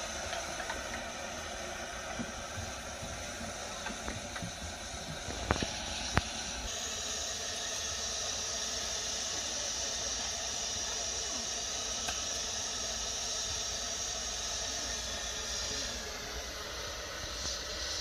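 Gas burner on top of a small LPG cylinder hissing steadily as it burns under a cooking pot, with two sharp knocks about five and a half and six seconds in.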